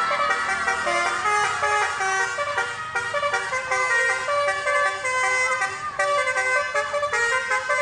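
Telolet multi-tone horn playing a quick, stepping melody, several horn notes sounding together and changing pitch every fraction of a second without a pause.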